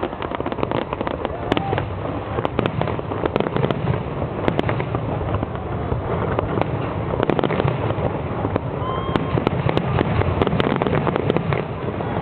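Fireworks exploding in a dense, continuous volley of sharp bangs and crackles.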